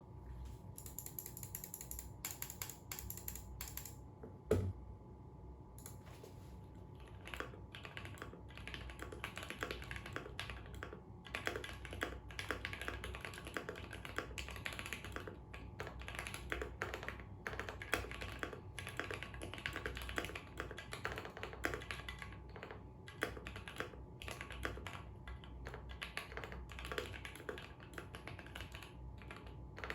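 Typing on a custom 60% mechanical keyboard with lubed Equalz Banana Split linear switches, a polycarbonate plate, lubed stabilizers and PBT keycaps: rapid, even keystroke clacks. There is a single louder thump about four and a half seconds in, and the typing is sparser before about seven seconds, then nearly continuous.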